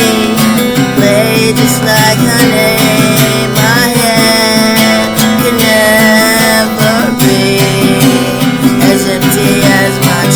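Acoustic guitar playing steadily in a song demo.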